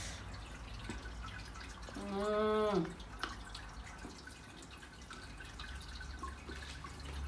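A woman gives a short hummed 'mmm' about two seconds in. Under it and around it come faint clicks and crunches as she picks pieces off the hard poruvilangaya snack ball and chews them.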